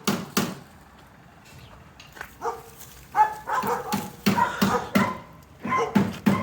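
A dog barking: a couple of short barks at the start, then after a lull a rapid run of short barks, several a second, from about three seconds in.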